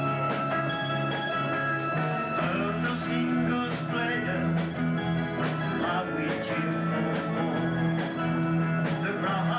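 Rock music played by a band, with guitar over a steady beat.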